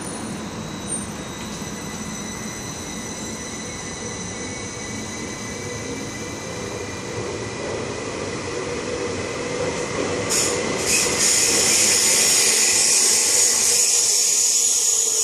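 Sm5 (Stadler FLIRT) electric commuter train pulling away from the platform, its traction motors whining and slowly rising in pitch as it gathers speed over a steady rumble. About ten seconds in, a loud high-pitched hiss from the passing cars and wheels sets in and holds to the end.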